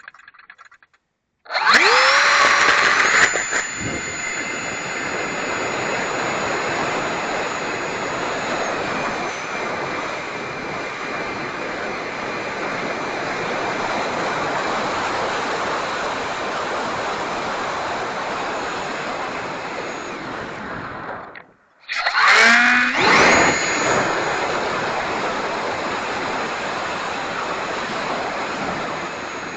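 Electric ducted fan of a Habu STS RC jet spooling up fast to a loud, high, steady whine with rushing air. It drops out briefly about two-thirds of the way through and spools up again.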